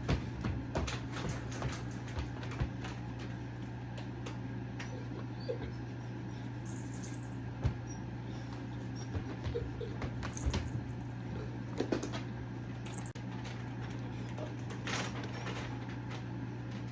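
A Neapolitan mastiff gives a few brief, faint whines, with scattered clicks and knocks, over a steady low hum.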